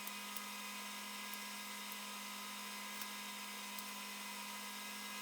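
Faint, steady electrical hum, with a few tiny clicks.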